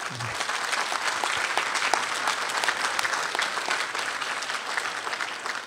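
An audience applauding at the end of a talk; the clapping starts suddenly and thins out near the end.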